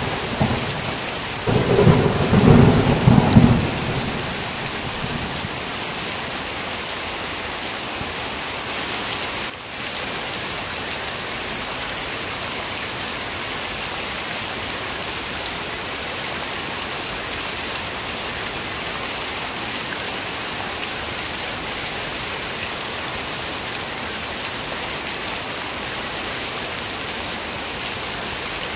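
Heavy rain falling steadily, with a roll of thunder in the first few seconds that rumbles and dies away.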